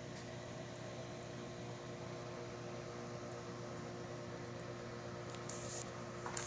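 A steady machine hum with several fixed tones over a background hiss. A short hiss is heard about five and a half seconds in, and a click near the end.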